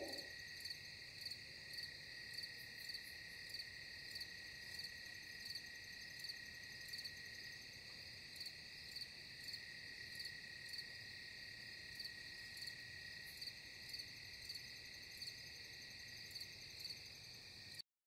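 Faint night insects, cricket-like: a steady high buzz with short chirps about twice a second, cutting off suddenly just before the end.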